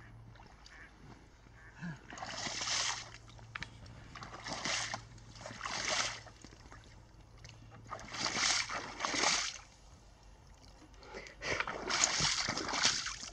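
Waders sloshing and splashing through shallow marsh water and thick mud, in a slow, uneven series of splashes about a second or two apart as the wader pulls each leg free.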